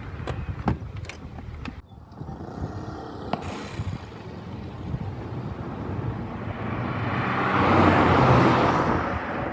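A few sharp clicks, then an engine-driven vehicle approaching and passing close, its sound swelling to a peak about eight seconds in and easing off near the end.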